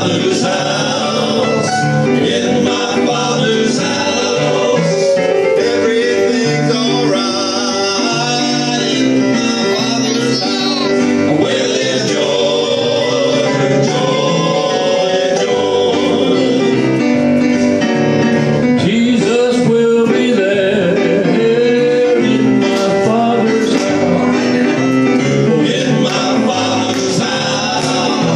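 Male southern gospel quartet singing in four-part harmony (lead, tenor, baritone, bass) through microphones, with piano accompaniment played on an electronic keyboard.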